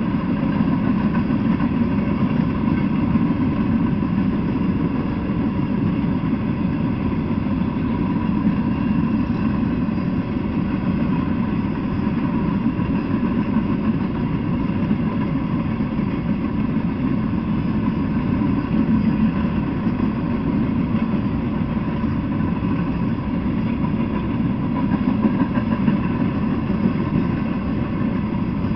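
Freight train of empty flatcars rolling past, a steady low rumble of steel wheels on the rails with no let-up.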